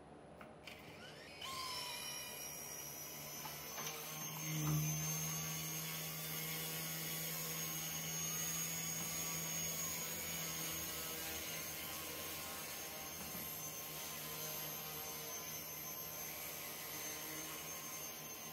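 Electric motors of a Firefox C219 RC micro helicopter spinning up about a second and a half in, rising in pitch, then holding a steady high whine as the rotors run. A lower hum joins for several seconds in the middle, loudest about five seconds in.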